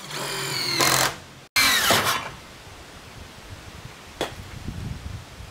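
A small motorised hand tool runs in two short bursts, the second falling in pitch as it winds down; a sharp click follows about four seconds in.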